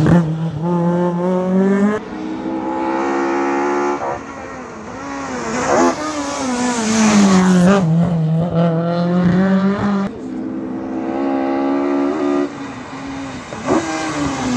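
Historic rally cars, a Ford Escort Mk2 among them, racing past on a tarmac stage. Their engines run at high revs, and the pitch dips and climbs as they change gear and brake for a hairpin.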